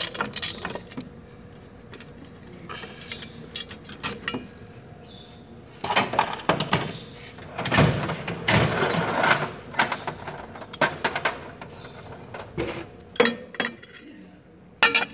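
Irregular metal clicks and clinks of a wrench and sockets working the bolts on a rear axle's brake backing plate, with a busier stretch of clatter around the middle.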